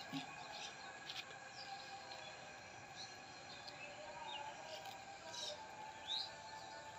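Birds chirping faintly, with short calls scattered through and a quick rising call about six seconds in, over a steady faint background drone. A couple of soft knocks come near the start.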